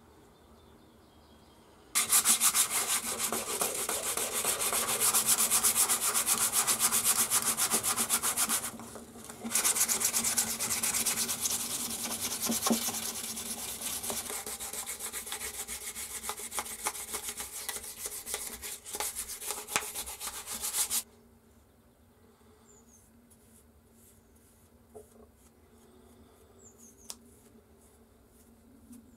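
Brisk hand rubbing on the wooden rear handle (tote) of a hand plane. It starts about two seconds in, breaks off briefly, goes on until a few seconds past the middle, then stops suddenly, leaving a quiet room with a couple of faint ticks.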